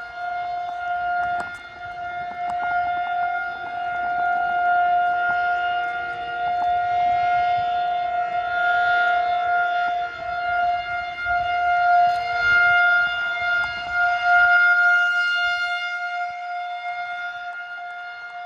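Outdoor warning siren sounding a steady tone during a test, its loudness swelling and fading. A low rumble underneath stops about three-quarters of the way in.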